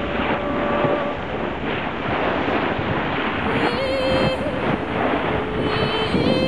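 Wind buffeting the microphone on a boat under way at sea, over the rush of water and the boat's steady running noise. A thin steady whine comes and goes, shifting pitch slightly a few times.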